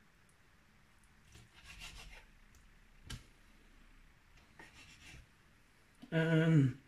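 Knife slicing and trimming raw chicken breast on a wooden chopping board: faint scraping and rubbing, with a light knock about three seconds in. Near the end, a short voiced sound from a person, falling slightly in pitch, is the loudest thing.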